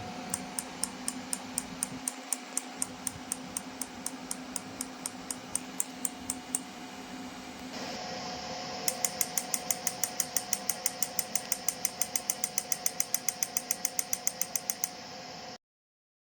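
PEMF magnetic therapy handle clicking with each magnetic pulse over a steady machine hum. The clicks come at about four a second, then about halfway through switch to a faster run of about seven a second, and everything cuts off suddenly shortly before the end.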